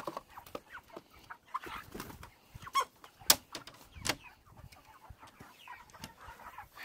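Meat chickens clucking in short, scattered calls, with three sharp knocks from around the middle on; the second knock is the loudest sound.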